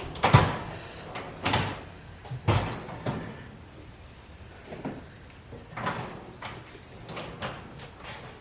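Irregular knocks and clacks from tools and parts being handled, about one a second, the loudest in the first three seconds and fainter after.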